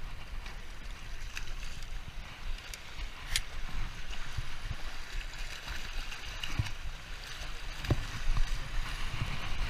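Small waves washing and lapping over a low, wet concrete pier, with wind rumbling on the microphone and a few sharp clicks and splashes.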